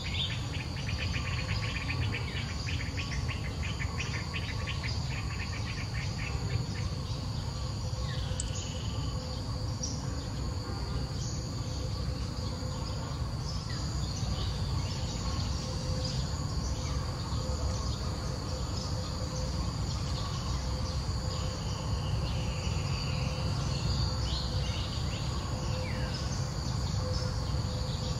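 Outdoor insect chorus: a steady high-pitched trill, with a fast pulsing buzz for the first six seconds or so. A few short downward-sliding bird chirps come through later, over a steady low rumble.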